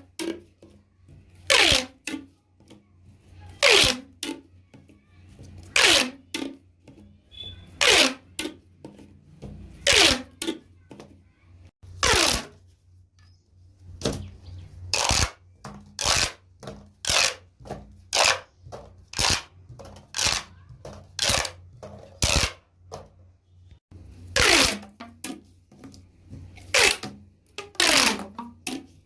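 Plastic pop tubes being stretched and squashed, each pull a short ratcheting zip that falls in pitch. The zips come about every two seconds, quicken to roughly one a second through the middle, then slow again, over a faint steady hum.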